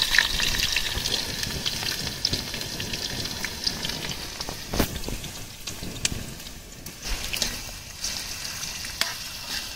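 Chopped onions sizzling in hot oil in a small frying pan on a portable gas stove, the sizzle loud at first and slowly dying down as the oil cools around them. A few sharp clinks of a steel spoon against the pan as they are stirred.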